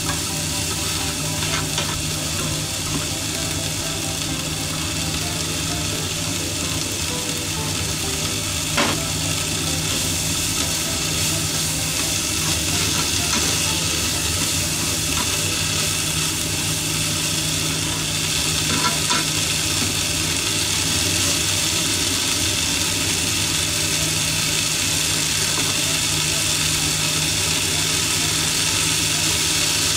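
Mizuna and chirimen jako (tiny dried sardines) sizzling as they are stir-fried in a frying pan, over a steady low hum. A few sharp clicks of a utensil against the pan break through the sizzle.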